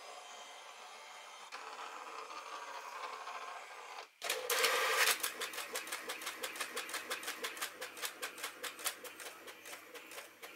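HP all-in-one printer making a copy. It whirs steadily for about four seconds, stops briefly, then gives a louder burst as the paper is drawn in. Fast, even clicking follows as the page feeds through and prints.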